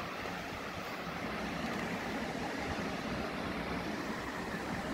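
Steady background noise, an even low rumble and hiss with no distinct events and no cat sounds.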